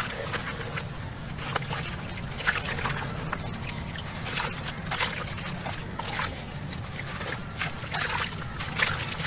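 A wet sand-cement lump is squeezed and crumbled by hand in a tub of water, sloshing and splashing. Irregular gritty crackles come as clumps of wet sand break off and fall back onto the pile.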